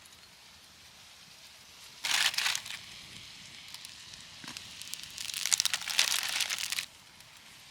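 Crinkling and rustling in two bursts, a short one about two seconds in and a longer, louder one from about four and a half seconds that stops abruptly near the end.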